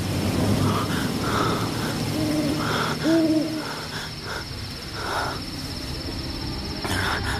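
Owl hooting: two short hoots about a second apart, a couple of seconds in.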